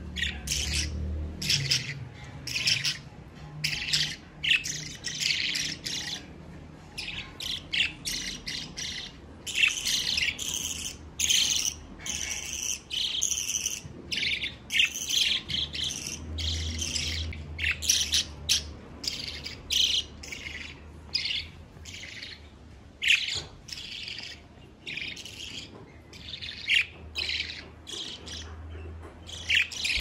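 Budgerigar chicks chirping: short, high-pitched calls in quick, overlapping runs with brief pauses between them.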